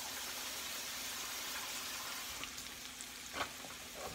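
Chicken pieces frying in a skillet, a steady sizzle, with one light knock about three and a half seconds in.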